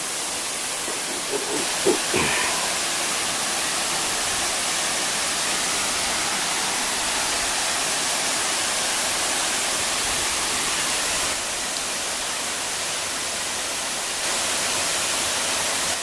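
Steady rush of a waterfall, about 50 feet high, pouring down a rock face into a pool. The rush grows louder about a second and a half in, drops back near eleven seconds and rises again near fourteen. A brief knock comes about two seconds in.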